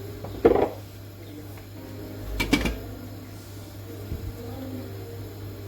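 Two short clatters of kitchen things being handled, about two seconds apart, the second louder, over a steady low hum.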